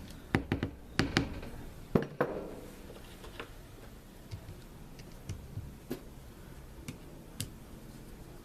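Sharp clicks and taps of small metal parts being handled as an angle grinder's gear-head cover is seated and its screws fitted: a quick run of clicks in the first two seconds, the loudest knock about two seconds in, then a few faint scattered ticks.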